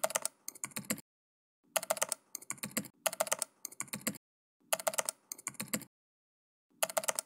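Computer keyboard typing: quick runs of key clicks, each run about half a second, with short silent pauses between them.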